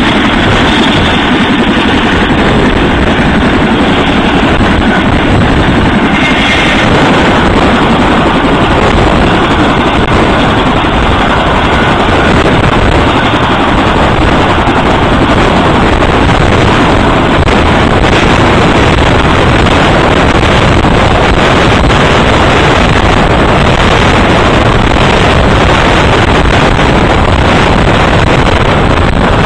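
CH-47 Chinook tandem-rotor helicopter hovering low overhead with a Humvee sling-loaded beneath it: a loud, steady rush of rotor and turbine noise, with the downwash buffeting the microphone.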